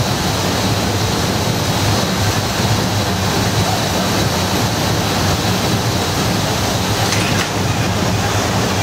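Steady industrial roar of a glass-factory blowing floor, a continuous low rumble with a faint high hum over it.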